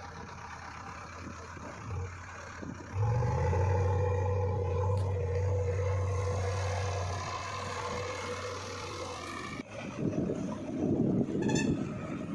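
Heavy diesel engine of working machinery running. About three seconds in it turns louder and deeper and holds steady, then eases off. Irregular low rumbling follows near the end.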